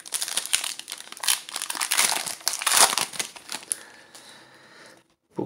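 Plastic trading-card pack wrapper being torn open and crinkled, a dense crackling that eases off after about four seconds.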